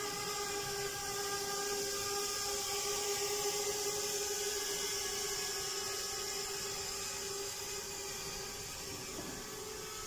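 Parrot Bebop 2 quadcopter's propellers running in flight: a steady whine made of several held tones over a hiss. It grows slightly quieter toward the end.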